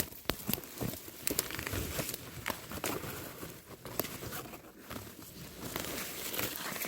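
Leaves and stems of a wild herb rustling, crinkling and tearing as they are handled and picked, with many small irregular snaps.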